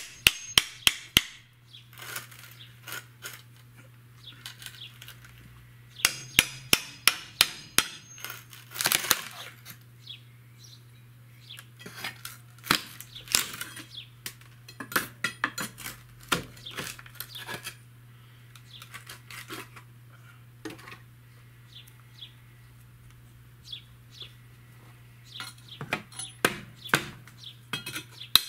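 Hammer blows knocking out an old basement window frame: runs of quick, sharp strikes with pauses between. Near the end the man is working a pry bar against the frame.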